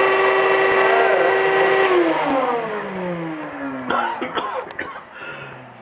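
Wet/dry shop vac motor running with a steady whine, then switched off about two seconds in; the whine falls in pitch and fades as the motor spins down.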